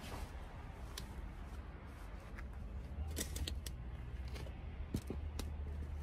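Gloved hands pressing and working potting soil around a cherry tomato seedling in a pot: soft scraping and rustling with a few sharp clicks, bunched about halfway through and again near the end, over a low steady rumble.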